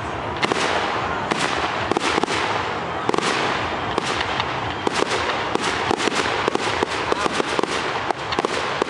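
Fireworks display: aerial shells bursting one after another, each followed by dense crackling and popping. The crackles come thicker and faster near the end.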